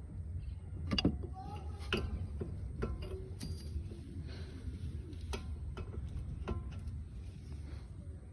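Irregular sharp clicks and taps, about eight, the loudest about a second in, over a steady low hum. They come from hand work with pliers on a front disc brake caliper's pads and retaining clips, which are being adjusted so the pads cannot rattle.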